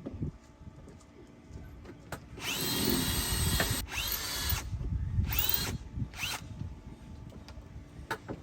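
Electric drill with a hole saw cutting through the lifeboat's thick hull. It runs in four trigger-pulled bursts, the first about a second and a half long and the others shorter, and the motor's whine rises as each burst spins up.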